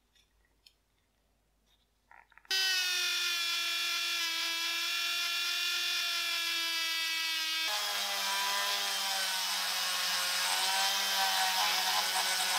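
Handheld rotary tool spinning a brass wire brush wheel against a revolver's steel frame and barrel, scrubbing off rust. It starts about two and a half seconds in with a steady high-pitched whine. Near the middle it drops to a lower pitch with more scratching hiss.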